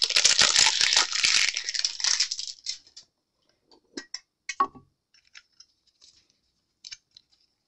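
Pokémon trading cards and their packaging being handled: a dense rustling, crinkling noise with many small clicks for the first two and a half seconds, then a few scattered light taps and clicks.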